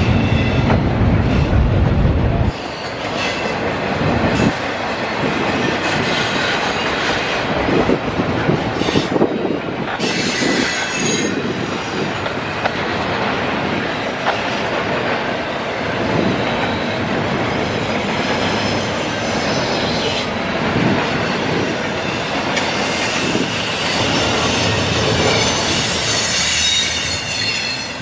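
Norfolk Southern double-stack intermodal well cars rolling past at speed, their steel wheels clacking over the rails with a continuous rolling rumble. High-pitched wheel squeal rises about ten seconds in and again near the end. A heavy low rumble in the first couple of seconds cuts off suddenly.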